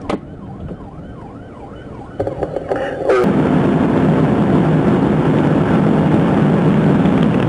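Police siren wailing in a quick rising-and-falling yelp, about three sweeps a second, with a sharp click at the start. About three seconds in, a much louder steady rumble of the cruiser driving at speed takes over and drowns it.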